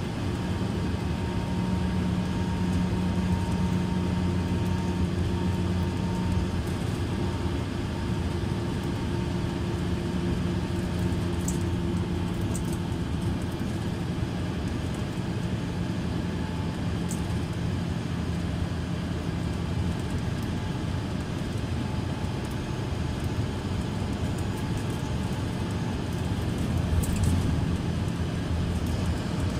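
Mercedes-Benz Citaro C2 LE Ü city bus with its OM 936 hLA turbocharged six-cylinder diesel idling steadily while the bus stands still, with a few faint high ticks.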